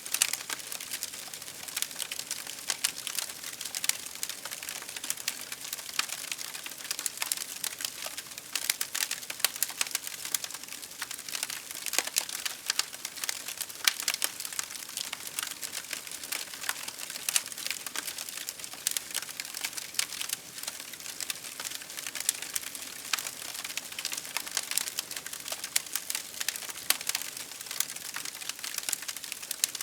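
Wood fire crackling, with many sharp irregular pops and snaps over a steady hiss of burning.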